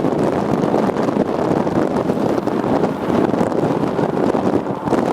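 Strong wind buffeting the camera microphone: a loud, unsteady rushing noise that surges and dips.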